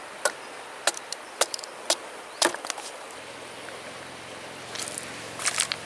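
Sharp wood-on-wood knocks: a branch striking a small square wooden block, five or six blows about half a second apart, then a cluster of lighter clicks and knocks near the end.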